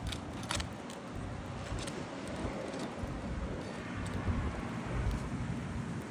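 Wind rumbling and gusting on the microphone, with a few light clicks and scrapes from a sharp tool breaking the seals of asphalt roof shingles in the first two seconds.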